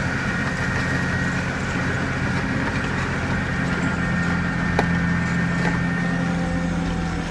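Diesel engine of a 2006 Volvo G930 motor grader running steadily while snow ploughing, with a single short click about five seconds in.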